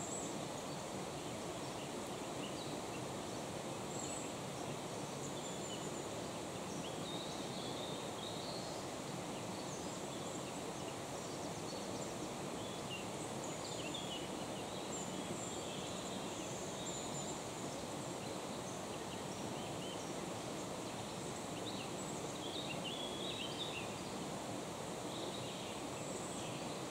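Woodland birdsong: several small birds chirping and trilling in short, scattered phrases over a steady low rush of background noise.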